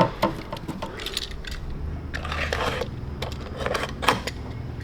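Scattered light clicks and small knocks, the handling of small metal parts and tools during an oil change, over a low steady hum.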